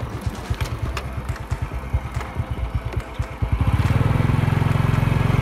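Small motorbike engine running at low speed with an uneven, pulsing note and a few sharp knocks, then growing louder and steadier about three and a half seconds in as it picks up speed.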